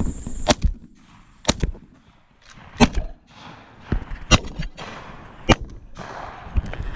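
A volley of about five shotgun shots, roughly a second apart, as waterfowl hunters fire on geese coming in to decoys.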